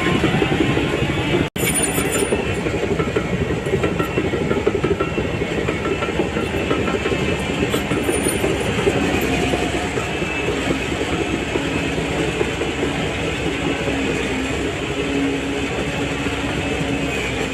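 Crawler bulldozer working: the diesel engine runs steadily under load while the steel tracks clank continuously. The sound breaks off for an instant about a second and a half in.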